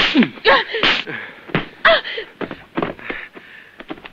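Several sharp open-hand slaps, each followed by a woman's short cry or gasp.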